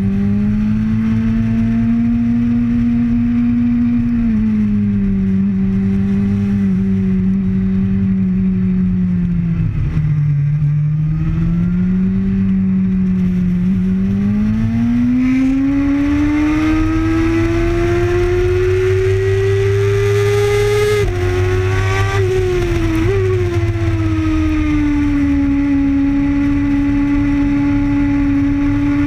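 Sport motorcycle engine at track speed, heard onboard with wind rushing over the microphone. The engine note sags about ten seconds in, then climbs steadily under acceleration, drops abruptly about three-quarters through and settles to a steady pitch.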